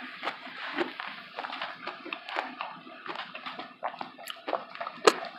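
A person chewing food close to the microphone, with irregular crunches and mouth clicks; one sharper crunch comes about five seconds in.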